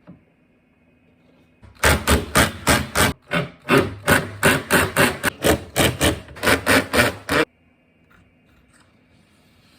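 Hammer blows in a quick steady rhythm, about three a second, for around six seconds, then stopping abruptly.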